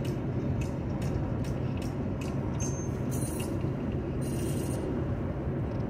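Steady road and engine drone of a car driving on a highway, with a row of light ticks and two short hisses about three and four and a half seconds in.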